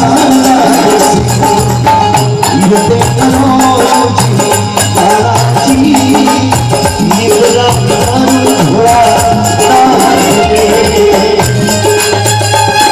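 Instrumental break in a live Rajasthani bhajan: a held melody line and a repeating bass line over fast, steady percussion with jingling rattles.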